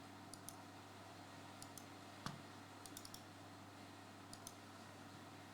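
Near silence with faint, scattered clicks of a computer keyboard and mouse, a few single and paired taps spread unevenly through the stretch.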